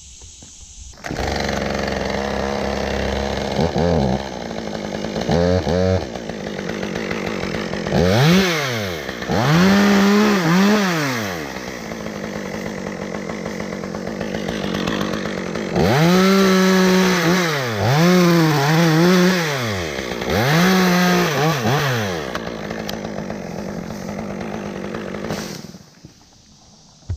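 Two-stroke chainsaw idling, then revved up several times and held at high revs, its pitch sagging and recovering as it cuts wood. It shuts off near the end.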